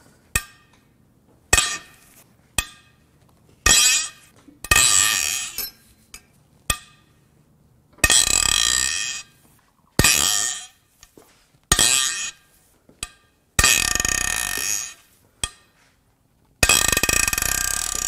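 Main cylinder head bolts on a Toyota 2GR-FE V6 being broken loose with a breaker bar. There are several sharp metallic cracks as bolts let go, and between them longer ringing squeals, about a second each, as the tight bolts turn in their threads.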